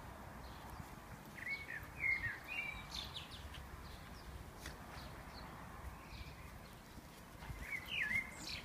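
Quiet garden ambience with faint soft thumps and rustling from two dogs wrestling on grass. A few short high chirps come about two seconds in and again near the end.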